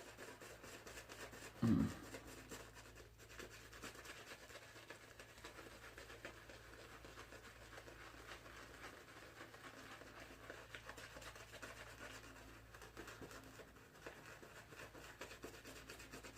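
Boar-bristle shaving brush scrubbing lather onto the face: a faint, steady scratchy rubbing. A brief low thump comes about two seconds in.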